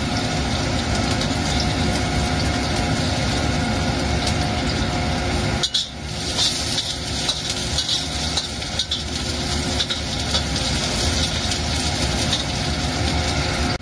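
Shallots and garlic sizzling in hot oil in a stainless steel wok, with a metal spatula stirring and scraping the pan, over a steady mechanical hum.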